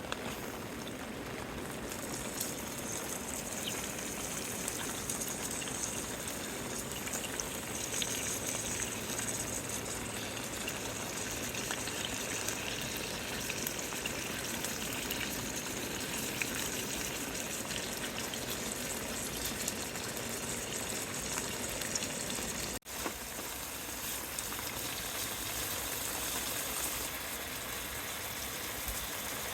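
Steady rain, an even hiss with fine crackle, broken by a split-second dropout about two-thirds of the way through.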